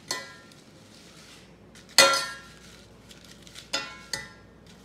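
Metal spoon striking the inside of a stainless steel saucepan as it is stirred: four ringing clinks, the loudest about two seconds in.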